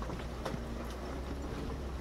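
Jeep Wrangler JKU Rubicon crawling off-road, its engine a low steady drone under irregular knocks and clacks of the tyres, rocks and suspension.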